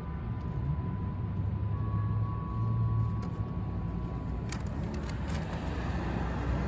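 Steady street traffic rumble, with the faint, distant chime of a municipal disaster-prevention loudspeaker playing long, held bell-like notes of the Japanese traditional lullaby. The last note fades about four and a half seconds in, and a few sharp clicks follow.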